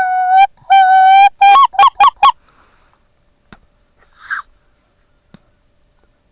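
Goose honking, very close and loud: two long level honks, then four short quick honks in fast succession. A faint click and a brief soft rustle follow a little later.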